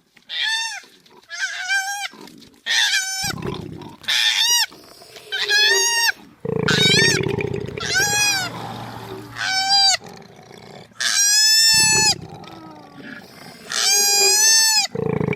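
Animal calls: a run of high-pitched, arching squealing calls, each under a second long, some with a low rough grunting sound beneath them.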